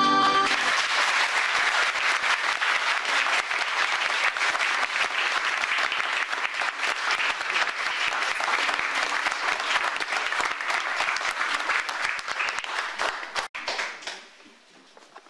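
Audience applauding steadily, starting as the last held note of the song's accompaniment stops. Near the end it cuts out abruptly and then dies away.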